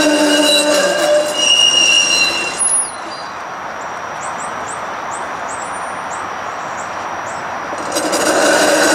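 Steel wheels of a TTC Flexity Outlook low-floor streetcar squealing as it rounds the tight curve of a track loop, several shrill tones at once. The squeal drops out after about three seconds, leaving a quieter steady noise, and comes back about a second before the end.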